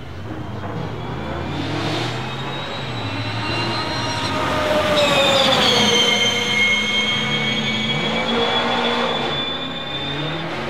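Audi RS Q e-tron E2 electric rally car accelerating past with a high-pitched electric drive whine over tyre and road noise. The whine builds as it approaches, drops in pitch as the car passes about halfway through, then eases as it drives away.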